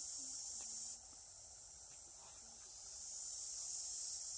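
Steady high-pitched insect buzz that drops abruptly about a second in and swells back up toward the end.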